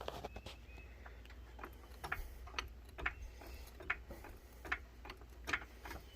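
Hydraulic floor jack being pumped, its handle and mechanism clicking about twice a second with each stroke as the car is lifted.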